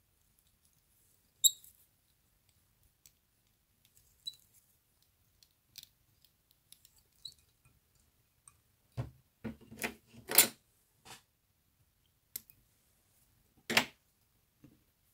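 Small clicks and taps of fly-tying tools and materials being handled at the vise, with a burst of louder handling clatter about nine to ten and a half seconds in and one sharp knock near the end.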